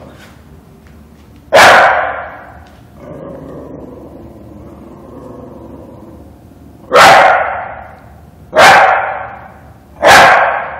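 A dog barking: four loud single barks, one about a second and a half in and three close together in the last four seconds.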